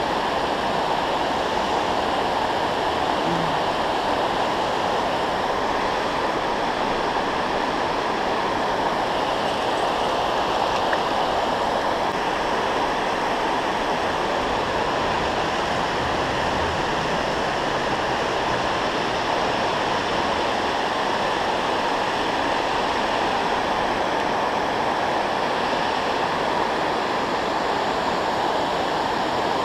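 Steady rushing of river water pouring over a dam spillway and churning in the river below it, an even roar with no breaks.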